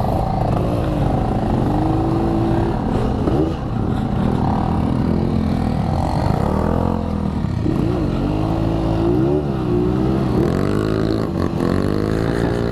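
Yamaha RX-King two-stroke motorcycle engine under way, revving up and easing off again and again so that its pitch rises and falls several times.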